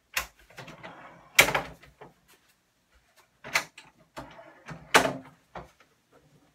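Hinged fold-down table on the front of a Murphy bed being folded shut: five knocks and clunks as the top and legs swing down, the loudest about a second and a half in and again about five seconds in, with lighter handling noises between.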